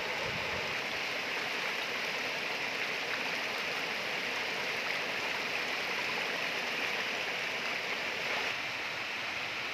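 Runoff from heavy rain rushing and splashing down a paved lane in a steady torrent.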